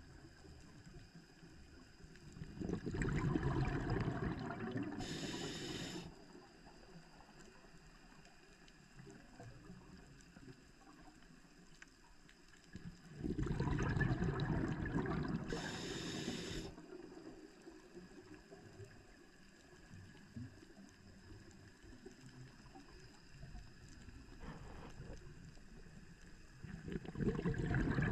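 A scuba diver's breathing heard underwater: exhaled bubbles gurgle out of the regulator in three rounds about twelve seconds apart, near the start, in the middle and at the end. The first two rounds end in a brief high hiss. Between them there is only a faint wash of water.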